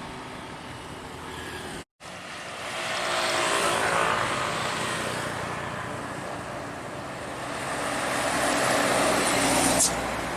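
Road traffic passing: vehicle engine and tyre noise swelling as a vehicle goes by about three seconds in, and again near the end, with a brief dropout to silence about two seconds in.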